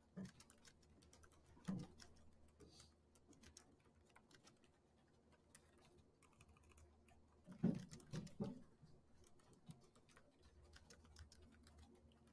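Faint clicking of a computer keyboard being typed on, a quick, uneven run of keystrokes. A few louder, low, muffled sounds come about two seconds in and again about eight seconds in.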